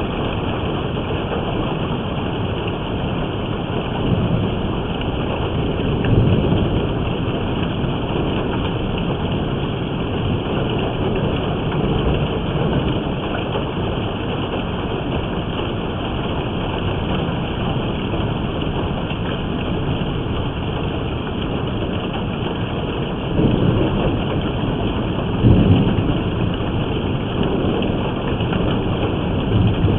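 Heavy rain of a thunderstorm pouring steadily, with low rumbles of thunder a few seconds in and again, louder, near the end.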